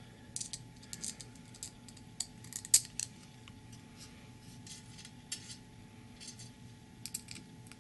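Scattered small clicks and taps of the Kershaw Blur folding knife's handle parts and steel liner being handled and fitted together, with one sharper click a little under three seconds in.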